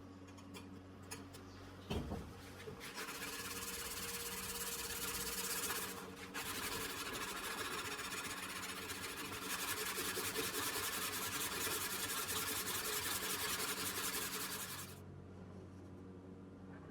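Abrasive rubbing on the machete during its restoration: a steady rasping that starts about three seconds in, breaks briefly, then carries on until near the end, after a single knock about two seconds in.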